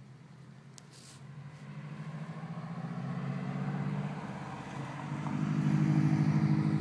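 A low engine-like rumble, as of a passing motor vehicle, growing louder over several seconds and loudest near the end.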